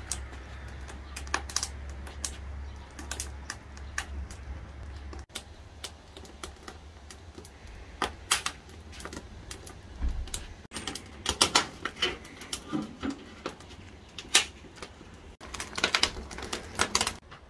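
Split firewood burning in a metal grill, crackling with irregular sharp pops and snaps that come in dense flurries at times.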